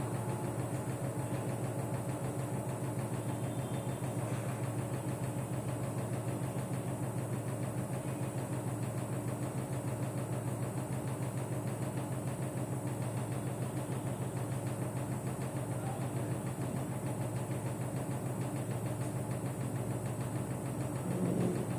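Samsung front-load washing machine running: a steady hum with a fast, even vibration.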